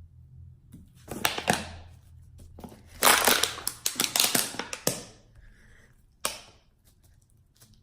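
Plastic crinkling and crackling while being handled and squeezed, in bursts about a second in and again from about three to five seconds in, with a shorter crackle just after six seconds.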